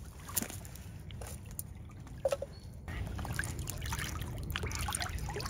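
Water trickling and splashing in small bursts as a pair of mute swans dip their heads under the surface to feed and lift them out dripping, over a steady low rumble. A short soft note sounds about two seconds in.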